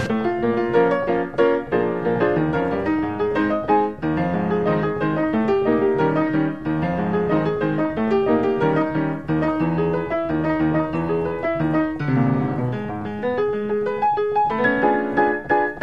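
Piano accompaniment in the style of silent-film music, playing a steady stream of quick notes, with a brief softer spell about twelve seconds in.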